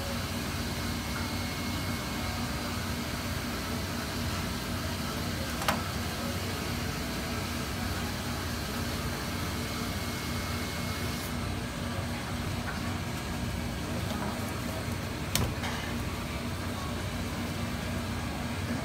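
Steady machine hum with a rushing air noise, broken by two sharp knocks about six and fifteen seconds in. The hiss turns softer about eleven seconds in.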